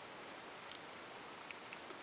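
Quiet room tone: a faint steady hiss with a few soft clicks scattered through it.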